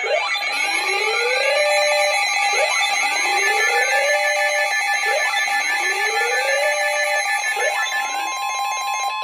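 Several electronic alarm tones layered together: a rising whooping sweep repeats about every two and a half seconds over a bed of steady beeping tones. Near the end this gives way to a single steady tone, the weather radio alert tone that comes before a National Weather Service broadcast.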